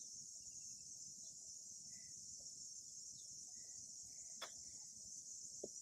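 Faint, steady high-pitched insect chorus, cricket-like, with a few faint short chirps and a soft click about four and a half seconds in.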